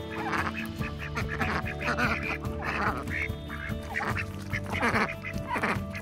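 Indian Runner ducks quacking close by, a quick run of short, repeated quacks from several birds.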